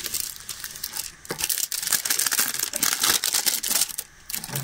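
Crinkling and rustling of a diamond painting canvas and its clear plastic adhesive cover film as they are handled, a dense crackle of small clicks that eases briefly near the end.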